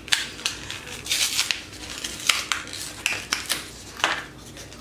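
Plastic retail packaging of a lip balm being pried open by hand, crinkling and crackling in quick irregular bursts.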